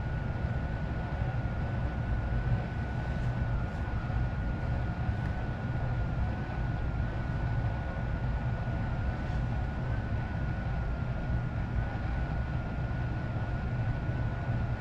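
Lennox indoor air handler running with its blower on, a steady rush of air and low rumble, with a thin steady high whine over it.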